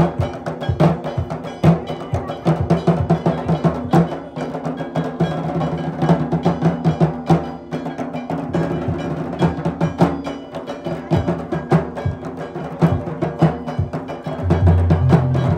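Live drumming on two barrel drums, a rapid steady beat that runs on without pause, with deeper booming strokes coming in near the end.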